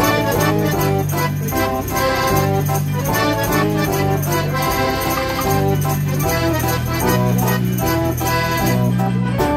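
105-key Decap dance organ playing a tune: held bass notes changing about once a second under a melody and chords, with drum and cymbal beats from the organ's percussion.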